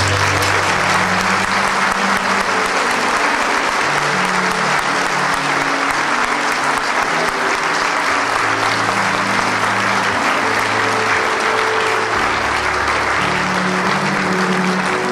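A large congregation applauding steadily, over keyboard music playing held bass notes that change every second or two.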